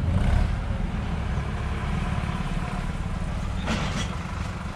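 Sonalika DI-745 III 50 HP tractor's diesel engine running steadily under way, a low, fast, even chug. A short burst of noise comes near the end.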